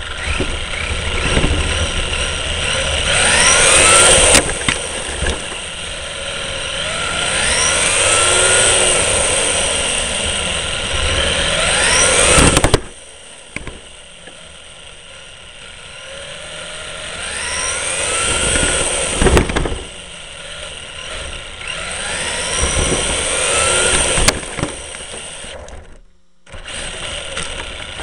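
Engine running with its pitch rising over and over in repeated sweeps. The sound drops suddenly about thirteen seconds in, builds back up, and cuts out briefly near the end.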